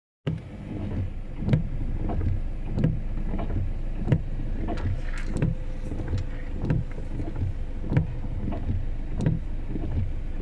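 Car interior while driving in rain: steady engine and road rumble with rain noise, and a knock from the windshield wipers about every 1.3 seconds.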